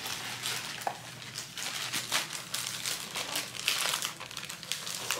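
Plastic poly mailer bag crinkling and crackling as it is pulled and torn open by hand, a continuous run of quick crackles.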